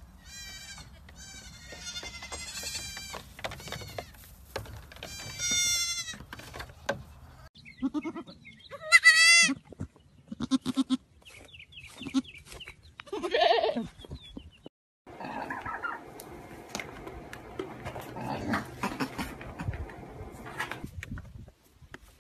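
Goat kids bleating: a run of high, wavering calls, then a loud single bleat about nine seconds in and another about four seconds later.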